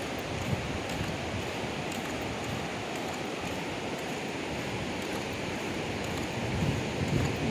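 Ocean surf washing steadily on a beach, with wind gusting on the microphone near the end.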